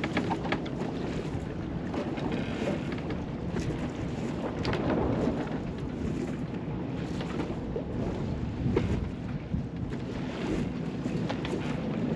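Sailboat under sail: wind buffeting the microphone over a steady wash of water along the hull, with scattered light knocks and clicks.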